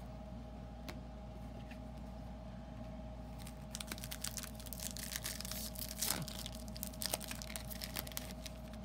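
A foil Topps Chrome trading-card pack being torn open and its wrapper crinkled: dense crackling that starts about a third of the way in, with a few sharper snaps later on.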